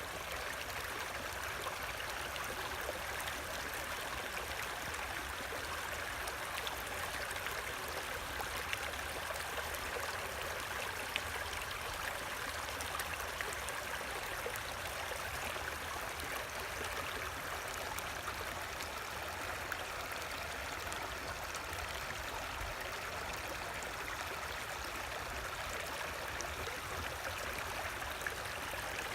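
Creek water running steadily, a continuous rushing with faint scattered trickles and drips.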